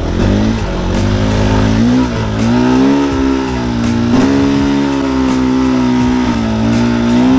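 Enduro motorcycle's single-cylinder engine revving up and down as the bike is ridden through soft sand, its pitch rising and falling with the throttle.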